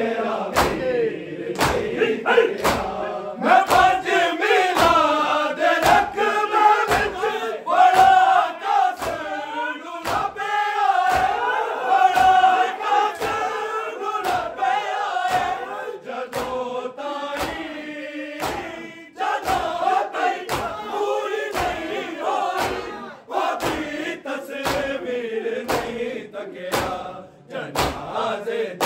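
A crowd of men chanting a Punjabi noha in unison, with the rhythmic slaps of matam (open hands beating on bare chests) landing together just under two times a second.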